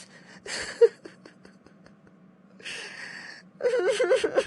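A child's voice crying: short breathy sobs, then a longer sobbing breath, then a wavering, pitched wail from about three and a half seconds in.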